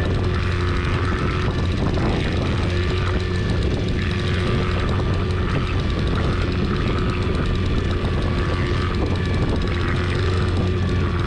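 Boat motor running at a steady speed, a constant low hum with a faint whine above it.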